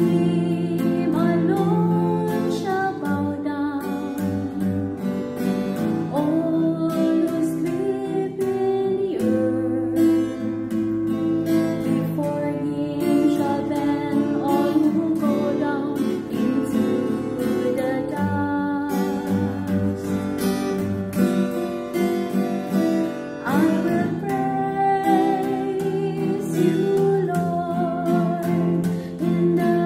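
Acoustic guitar strumming chords under a sung melody.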